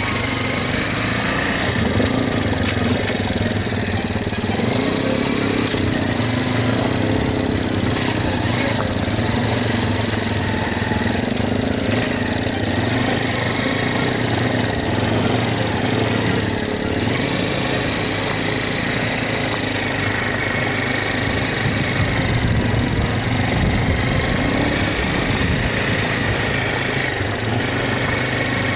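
Single-cylinder dual-sport motorcycle engine running steadily, with a steady rushing noise over it.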